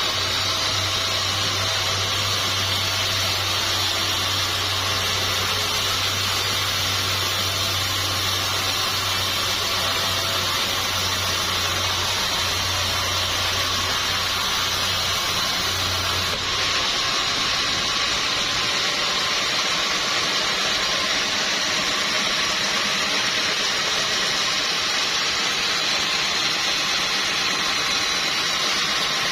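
Sawmill machinery running steadily with a loud, even noise. A low hum underneath drops out suddenly a little past halfway, where the sound changes at a cut.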